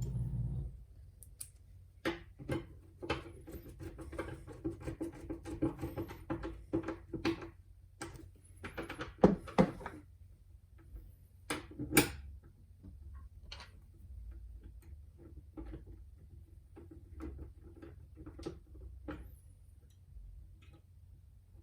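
Irregular small clicks, taps and light knocks of hands working the parts of a door handle and latch during a repair, with two sharper knocks about nine and twelve seconds in. A steady hum cuts off within the first second.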